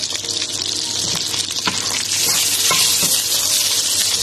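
Butter sizzling as it melts in a hot wok, stirred with a wooden spatula that gives a few light scrapes and knocks against the pan. The sizzle grows louder about halfway through.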